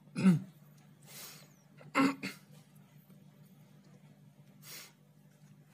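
Two short, low vocal cries, a sharp one just after the start and another about two seconds in, with two breathy hiss-like sounds between and after, over a steady low hum.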